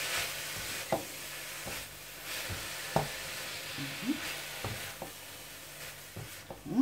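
Stir-frying chow mein: a utensil stirring and tossing noodles and vegetables in a stainless-steel pan over a steady frying sizzle, with several sharp knocks of the utensil against the pan.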